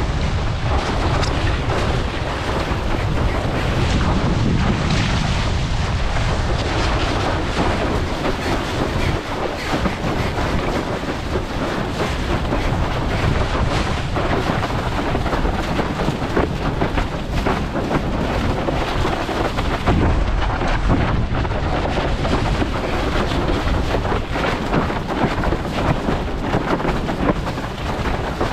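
Wind buffeting an action camera's microphone while a windsurfer sails across the chop, with water rushing beneath the board. A loud, steady rumble that holds throughout.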